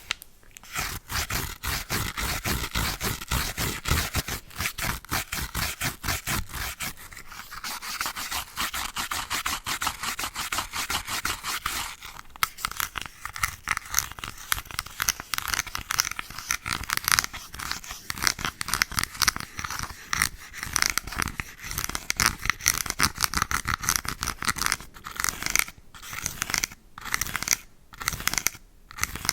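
Brush scrubbing in rapid, scratchy back-and-forth strokes, with a few short pauses near the end.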